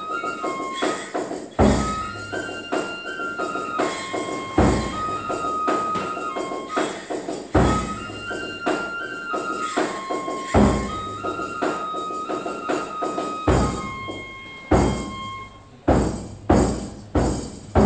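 Kagura music: a bamboo flute plays a melody in stepped, held notes over a drum struck about every three seconds and shimmering cymbal strokes. Near the end the flute stops and a quick run of drum and cymbal strikes follows.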